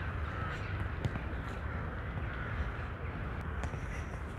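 Steady outdoor background noise: a low rumble with a faint hiss and a few light clicks.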